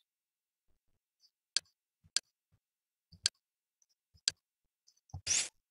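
Sharp single clicks from navigating a media-player menu, four of them about a second apart, then a longer, louder click-like burst near the end.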